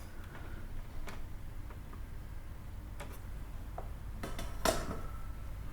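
Scattered light clicks and taps of tools on a circuit board while a capacitor is desoldered from a receiver's power supply, the loudest click near the end, over a faint steady low hum.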